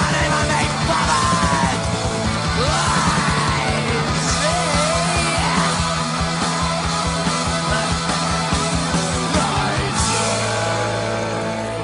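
Punk rock recording with a fast, driving drum beat, distorted guitars and yelled vocals. About ten seconds in the drums stop and a single chord is left ringing.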